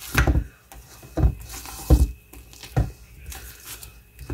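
Silicone spatula folding whipped topping into a thick no-bake cheesecake filling in a stainless steel bowl: soft, squelching strokes that scrape and bump against the metal, about one a second.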